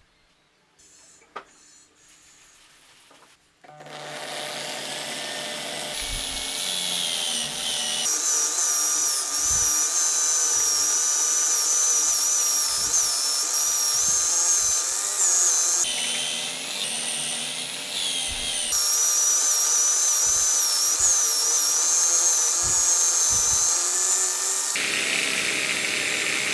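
Electric drill driving a homemade disc sander, its motor running with a high whine that wavers in pitch. It starts about four seconds in and changes tone abruptly several times.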